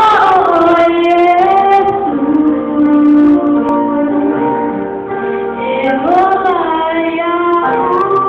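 A group of girls and young women singing together in held, wavering notes. A new phrase starts with an upward swoop at the beginning and again about six seconds in.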